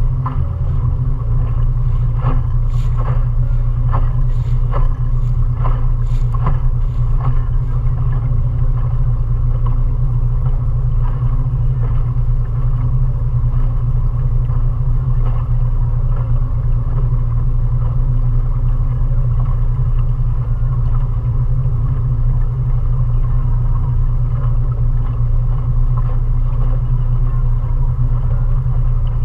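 Mariner 20 hp outboard motor running steadily while the small cruiser is under way, a loud, even, low drone heard from aboard. A run of short knocks sits over it from about two to seven seconds in.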